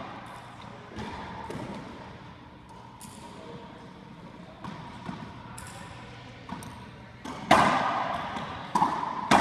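Racquetball striking the walls and floor of an enclosed racquetball court: scattered sharp smacks and bounces. The loudest hit comes about seven and a half seconds in, with a long echo after it.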